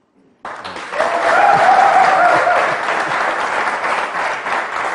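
Studio audience applauding, starting suddenly about half a second in and running on loudly.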